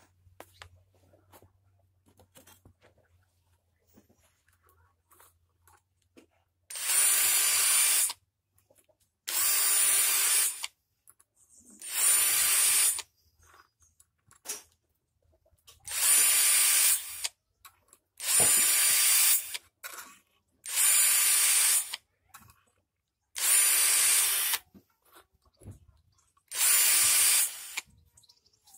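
Cordless drill spinning a sharpening bit against a chainsaw chain's cutting teeth, sharpening one tooth at a time. It runs in eight short bursts of about a second each, starting some seven seconds in, with a short pause between teeth.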